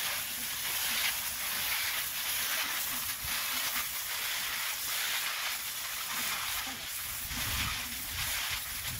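Garden hose spray nozzle spraying water onto fish fillets in a stainless steel bowl: a steady hiss of spray splashing into the bowl.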